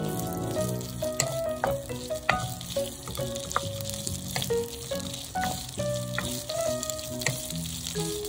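Scored Vienna sausages sizzling in hot oil in a frying pan, stirred with a spatula that clicks and scrapes against the pan every second or so. Soft background music plays underneath.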